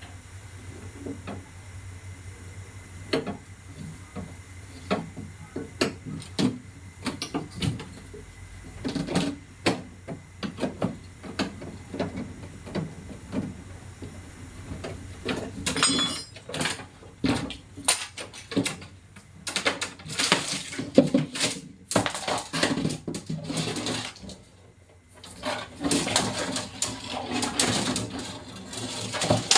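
Irregular knocks, clatter and scraping of metal and plastic parts being handled and worked while a two-door refrigerator's body is taken apart, growing busier and louder about halfway through.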